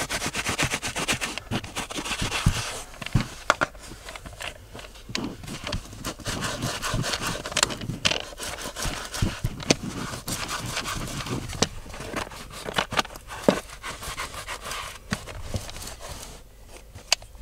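Sticky lint roller rolled in strokes over a car's ribbed rubber floor mat and carpet, a scraping sound full of small clicks and crackles.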